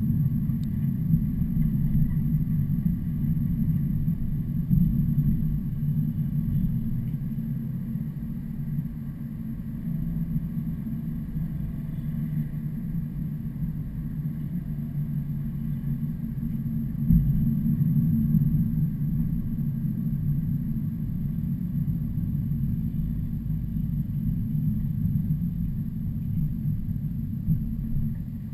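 Heavy trucks running on the highway: a steady low engine and road rumble, with a thump and a brief swell in level about seventeen seconds in.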